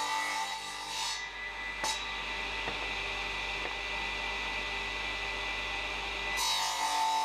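Steady electric hum with a high whine and a single click about two seconds in. Background music fades down at the start and comes back up near the end.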